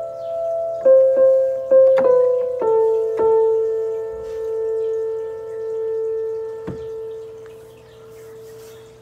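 Electronic keyboard being played: a few single notes struck in the first three seconds, then a chord held and left to ring. The chord swells and sags slowly and dies away near the end.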